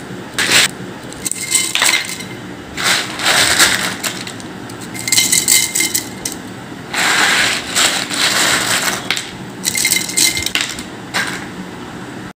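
Dried, thin-sliced tapioca chips rattling and clattering against a glass jar, in about six separate bursts.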